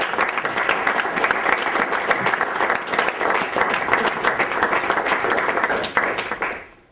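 Audience applauding, a dense patter of clapping that dies away shortly before the end.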